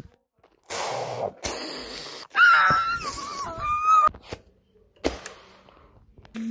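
Breathy, wheezing gasps, then a high-pitched wavering wail from a voice lasting under two seconds, and a single sharp click about five seconds in.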